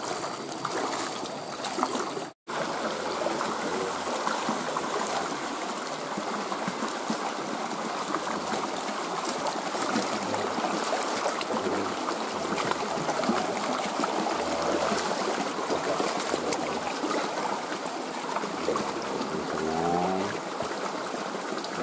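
Stream water flowing steadily, a continuous rushing. The sound drops out for an instant about two seconds in.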